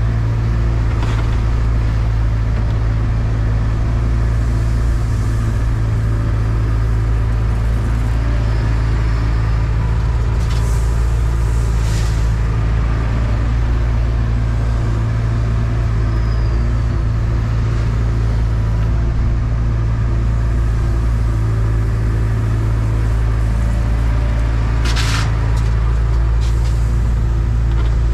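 Volvo 235EL excavator's diesel engine running steadily with a deep low hum while the machine digs and swings, heard from inside the cab. A few short clatters come through, around ten to twelve seconds in and again about twenty-five seconds in.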